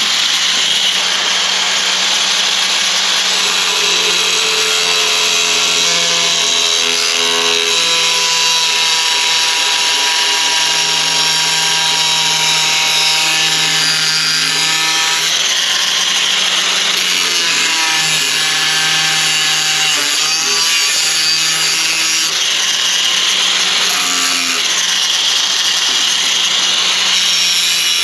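Handheld power tool running continuously under load, a loud steady grinding noise over a low motor hum, its pitch shifting now and then as it bears on the work.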